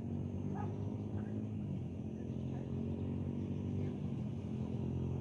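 A vehicle engine idling nearby: a steady low hum that does not change.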